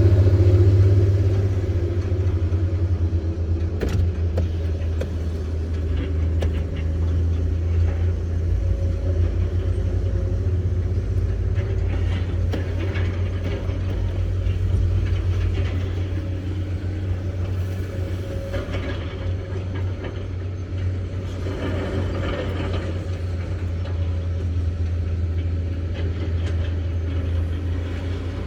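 Excavator's diesel engine running steadily with a deep drone, louder for the first two seconds, with scattered knocks and short rushing noises as the machine works.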